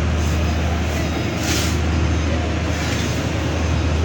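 Heavy diesel road-works machinery running steadily with a deep engine drone, and a short burst of hiss about a second and a half in.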